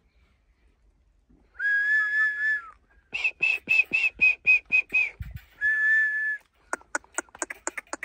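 Whistling: a long held note, then a run of about nine short, higher notes at roughly four a second, then another long held note. A quick series of sharp chirps starts near the end.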